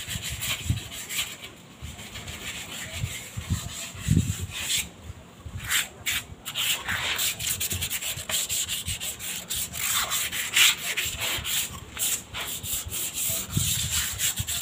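Rough cement flower pots being rubbed down by hand, rapid irregular rasping strokes over the dry concrete surface, with a short lull about five seconds in.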